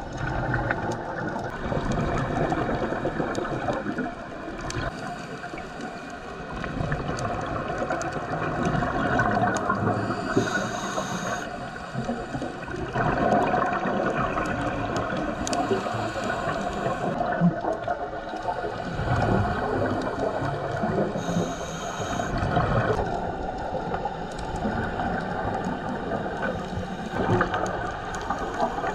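Muffled underwater sound through a dive camera's housing: scuba regulator breathing and gurgling exhaled bubbles. There are two brief stretches of higher hiss, about ten and about twenty-one seconds in.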